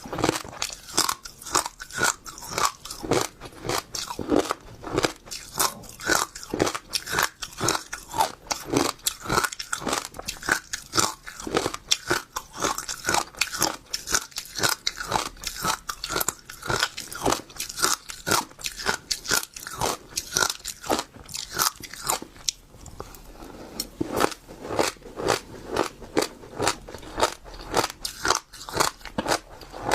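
Passion fruit seeds being chewed and crunched close to the microphone, in a quick, steady run of sharp crunches several times a second, with a short pause about two-thirds of the way through.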